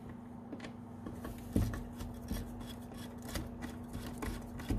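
Small flathead screwdriver working the wire-clamp screw on the terminal block of an NCE Switch 8 MK-2 accessory decoder: light, irregular clicks and scrapes, with a louder knock about a second and a half in and another near the end, over a steady low hum.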